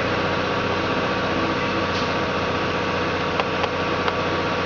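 Steady mechanical hum of a running motor with many even tones. A few light clicks, about two seconds in and again around three and a half and four seconds.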